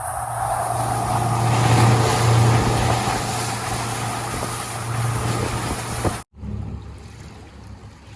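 Outboard motor running at speed on a moving boat, with a steady low drone and the rush of wind and water. It cuts off abruptly about six seconds in, giving way to a much quieter low hum.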